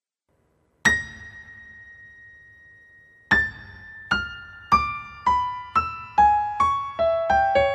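Instrumental opening of a song on a keyboard instrument: about a second in, one high note is struck and left to ring and fade, then single notes follow, each lower than the last, about one every half second and coming faster near the end.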